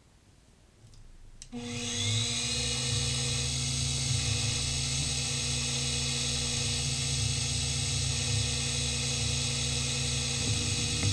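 Grizzly G0759 mill/drill's spindle motor switched on about a second and a half in, its whine rising as it spins up, then running steadily.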